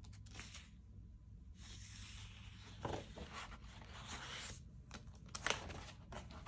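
Pages of a disc-bound Big Happy Planner being turned and handled: soft paper swishes and rustles, with a couple of louder brushes about three and five and a half seconds in.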